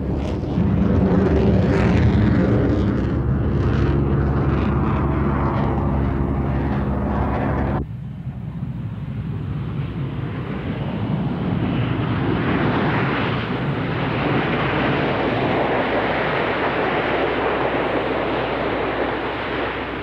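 Aircraft engine sound: a steady droning engine with a pitched hum, then about eight seconds in a sudden cut to a broad engine roar that swells and slowly eases off.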